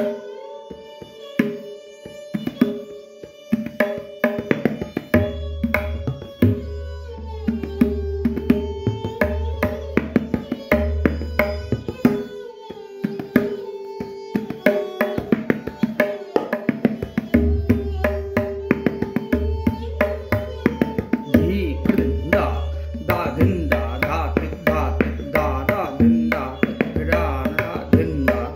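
Tabla played by hand: a Farukhabad-style Peshkar in slow (vilambit) teentaal, with quick strokes on the treble dayan and deep strokes on the bass bayan that come and go. A steady held melodic accompaniment sounds underneath. The strokes grow denser over the last few seconds.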